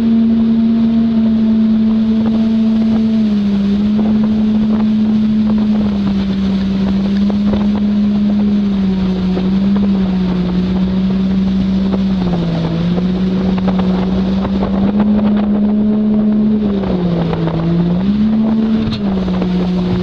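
Jet boat engine running at a steady speed, its pitch dipping briefly about three times and then recovering, over a constant rush of noise.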